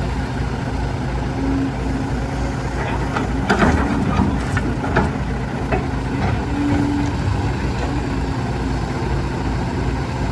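Truck engine running steadily at a low drone, with a short burst of clicks and rattles about three to five seconds in.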